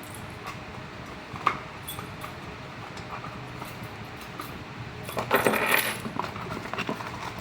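Small metal lock parts and keys clinking and rattling as they are handled. There is a single sharp click about a second and a half in, and a denser burst of rattling clinks about five seconds in.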